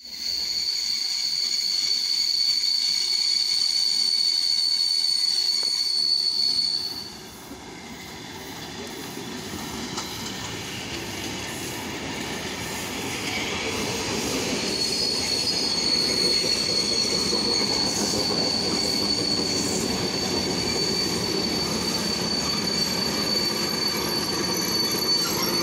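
ER9M electric multiple unit coming into the station. A steady high-pitched squeal from the train cuts off suddenly about seven seconds in. The rumble and clatter of the wheels on the rails then grows as the cars draw alongside, and the squeal comes back about halfway through.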